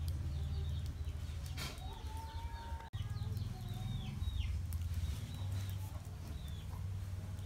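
Chickens clucking and birds calling in short, gliding calls over a steady low rumble. The sound briefly cuts out about three seconds in.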